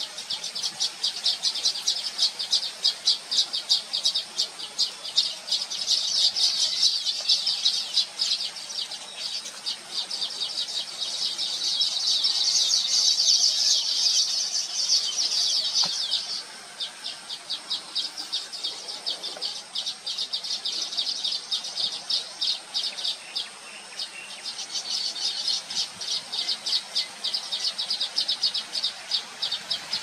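Baya weavers chattering at their nest colony: a dense, rapid run of high chirps that goes on throughout, quieter for a stretch after about halfway.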